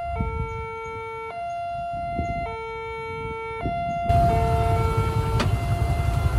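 Railway level-crossing warning siren sounding its two-tone signal: a higher tone and a lower tone alternate, each about a second long, warning that a train is approaching. About four seconds in, a louder low rumble joins it.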